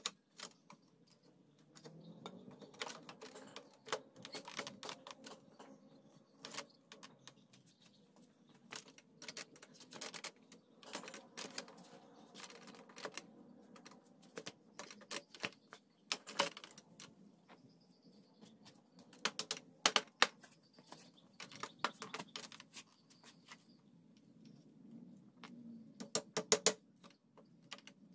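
Scattered light knocks and clicks of wooden frame pieces being handled and fitted together, irregular and without a steady rhythm.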